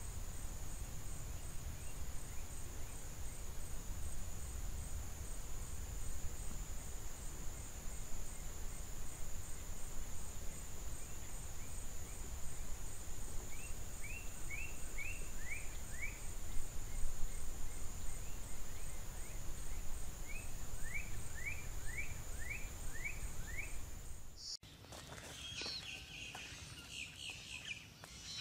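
Outdoor field ambience: a low wind rumble under a steady high-pitched insect drone, with a bird twice giving a quick run of falling chirps. Near the end the sound cuts abruptly to a quieter scene with other high animal calls.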